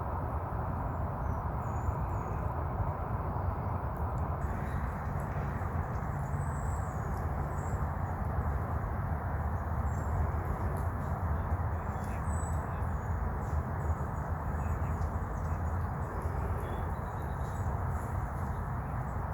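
Steady outdoor background noise with a heavy low rumble, and faint, scattered high bird chirps over it.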